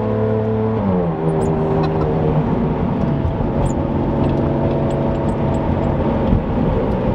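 Ferrari Enzo's V12 with a straight-piped exhaust, heard from inside the cabin under way. The engine note drops in steps at about one second and again at about two and a half seconds as it shifts up, then holds steady.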